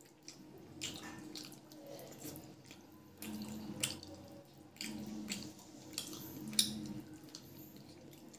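Wet eating sounds from a meal of chicken curry and rice eaten by hand: fingers squishing curry-soaked rice on the plate and open-mouthed chewing with lip smacks. It comes as a string of sharp, wet clicks and squelches, several a second at times.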